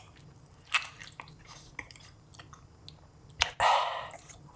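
Close-miked mouth eating sounds: scattered sharp bites and wet chewing clicks, with a louder bite about three and a half seconds in.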